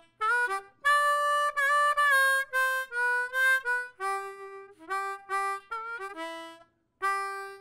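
Solo harmonica playing the show's closing theme: a short melody of separate notes with a few bends, then a brief pause and a last held note near the end.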